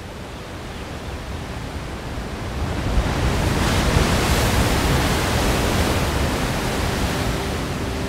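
Ocean surf: the rush of a wave swelling to a peak about halfway through, then slowly easing off.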